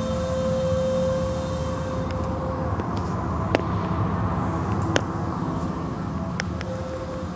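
Automatic tunnel car wash running, cloth strips and brushes working over a car under water spray: a steady rumble and wash of noise, with a hum held through the first two or three seconds. A few sharp clicks or knocks cut through, about three and a half and five seconds in, and once more later.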